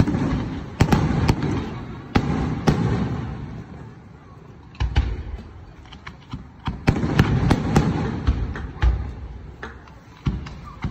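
Fireworks display: a string of sharp bangs from bursting shells, each trailing off into a low rumble. The bangs thin out briefly in the middle, then a run of quick cracks follows.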